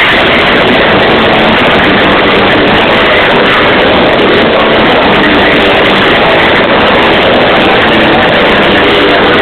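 Live rock concert recorded through an overloaded microphone. The amplified music is clipped into a constant, distorted roar in which the instruments and voice can barely be told apart.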